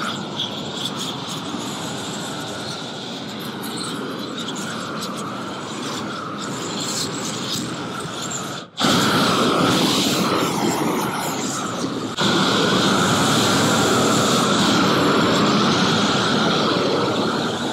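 Propane roofing torch burning with a steady rushing noise as it heats torch-down rubber membrane, burning off the plastic film so the membrane melts onto the base. The sound cuts out for an instant about nine seconds in and comes back louder.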